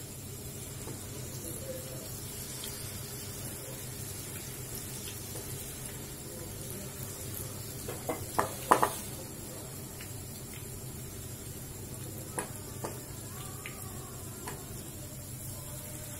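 Batter-coated mushroom pieces deep-frying in hot oil in a kadai, a steady sizzle. A few sharp crackles stand out about eight to nine seconds in, and two smaller ones a little past twelve seconds.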